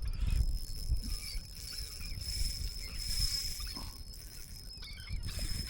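Faint calls of a flock of feeding seabirds over the water, short bending cries scattered through, with wind rumbling on the microphone and a thin steady high whine.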